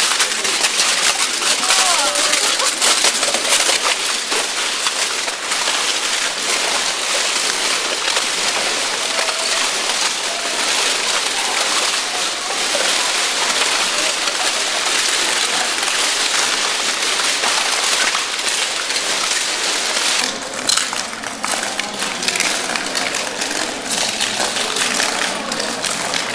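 Tiles crunching and cracking under the feet of many people walking over them: a dense, continuous crackle of small sharp snaps, as the tiles are crushed to fragments and powder.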